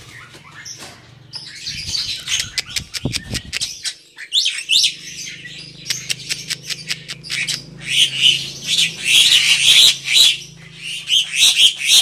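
Black-winged mynas (jalak putih) calling: rapid chattering and harsh squawks that grow louder and denser in the second half.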